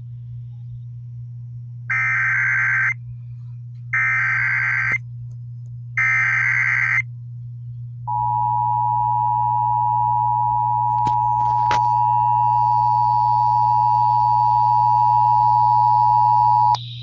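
Emergency Alert System activation over broadcast radio. Three one-second bursts of buzzy digital SAME header data come about two seconds apart, then the steady two-tone EAS attention signal sounds for about nine seconds and cuts off just before the end. A low steady hum lies under it throughout.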